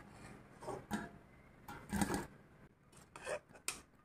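A few soft, separate clinks and scrapes of a metal ladle against an aluminium kadhai and bowl as boiled soya chunks are scooped out of their cooking water.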